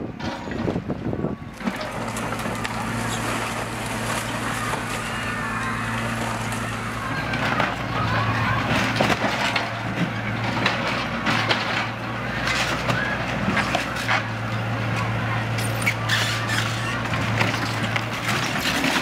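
Tracked demolition excavator's diesel engine running steadily under hydraulic load while its grab tears into a prefab building, with repeated cracks and crashes of breaking panels and falling debris, more frequent from about halfway through.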